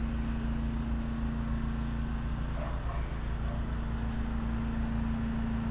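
Generator engine running with a steady roar: one constant hum that holds an even pitch and level.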